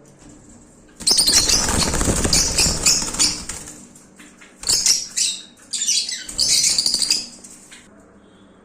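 Pet birds flapping their wings in loud bursts, with shrill chirps mixed in: a long flurry about a second in, then two shorter ones.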